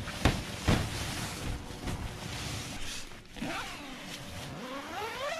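A tent door zipper being pulled open, its rasp rising and falling in several quick strokes over the last couple of seconds, after two short knocks of handling.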